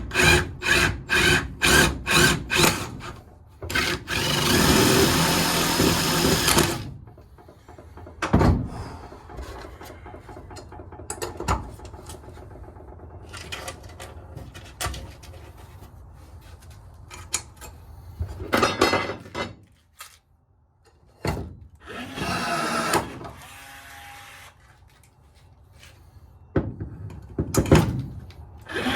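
Woodworking on a boat deck: a hand saw cutting wood in even strokes, about two and a half a second, then a power tool running for about three seconds, followed by quieter handling noise and several shorter runs of the tool.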